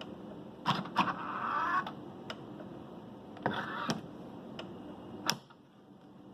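Tesla Model 3 charge port area ticking: faint, sharp, regular ticks about every two and a half seconds, made while the car sits parked. Several louder clicks and short rustling noises come in between.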